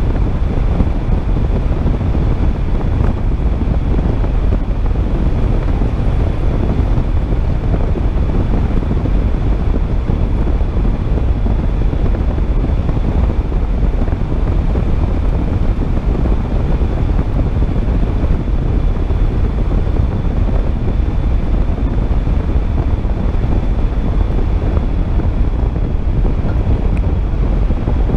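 Steady rumbling road noise of a car driving along a gravel road at about 60 km/h: tyres on gravel, wind and engine, unchanging throughout.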